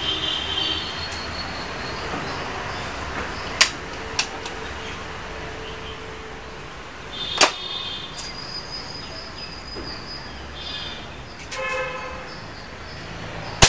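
Smartphone recording of an air rifle being handled between shots: a few sharp clicks about three and a half, four and seven and a half seconds in as it is cocked, loaded and closed, over steady background noise. The loud crack of the next shot comes right at the end.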